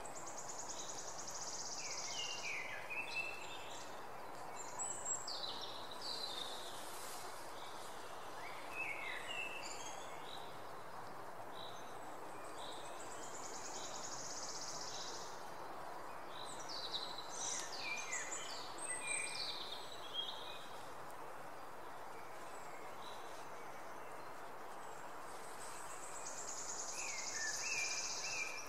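Outdoor ambience: songbirds singing short phrases of quick rising and falling whistles every few seconds, and a high buzzing trill three times, over a steady background hiss.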